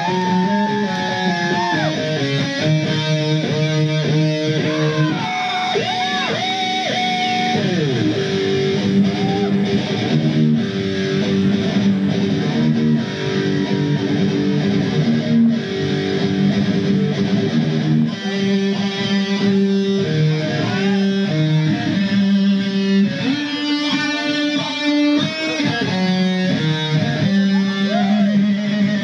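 Electric guitar played live in heavy-metal style, holding sustained notes with string bends that slide up and down in pitch, most plainly in the first few seconds and again a quarter of the way through.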